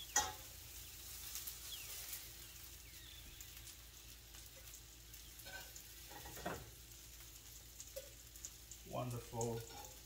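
Faint steady sizzle and crackle of hot oil in a frying pan holding seared salmon fillets, with a sharp metal clink of a spatula against the pan at the start and another about six and a half seconds in.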